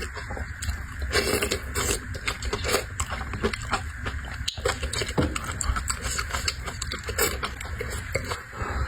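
Close-miked eating sounds: a person chewing and slurping octopus and shrimp, with a steady run of irregular wet smacks and clicks of the mouth.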